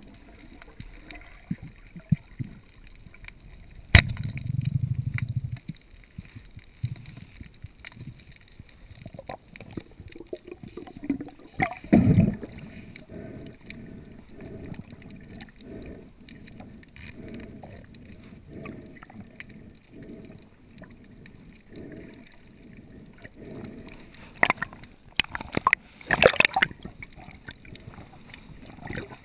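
Muffled underwater noise picked up by a GoPro in its housing while spearfishing. A sharp click comes about four seconds in, followed by a low rumble, and a louder knock comes around twelve seconds. A slow, even pulsing of about one beat a second runs through the middle, and a cluster of clicks comes near the end.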